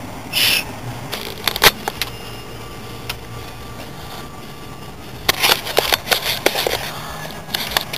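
Low steady hum of a car idling, heard from inside the cabin. A few clicks come in the first two seconds, and a run of rustling and clicking from the camera being handled starts about five seconds in.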